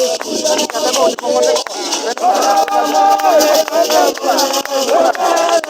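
A group of voices singing together in harmony, with hand rattles shaken in a steady beat of about three strokes a second.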